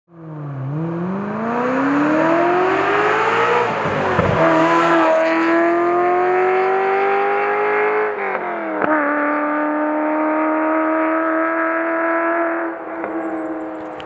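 Ferrari 348's 3.4-litre V8 accelerating hard, its pitch climbing steadily through the revs. It upshifts about 4 and 8 seconds in, then runs at a steady pitch before easing off near the end.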